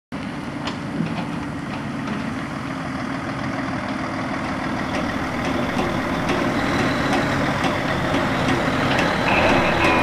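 Diesel engine of a Mitsubishi Fuso heavy tractor unit running as it hauls a loaded low-bed semi-trailer slowly past, growing steadily louder as it approaches.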